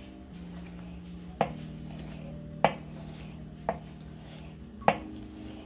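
Chef's knife slicing a tomato, the blade knocking on a hard cutting board four times at about one-second intervals.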